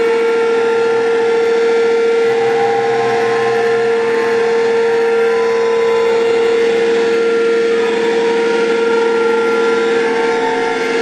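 Live electronic noise music from a small mixing desk and effects: a loud, steady drone of held tones, one strong mid-pitched tone under higher layers that shift slowly, with no beat.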